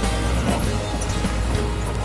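Music over the steady low running of a Komatsu D85E-SS bulldozer's diesel engine.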